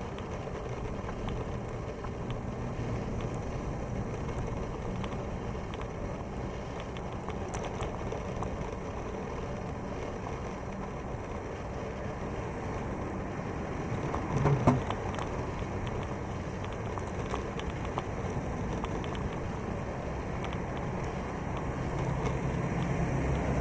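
Moulton bicycle rolling along a concrete path: steady tyre and riding noise with wind rumbling on the microphone, and a brief thump a little past halfway. The rumble grows louder near the end.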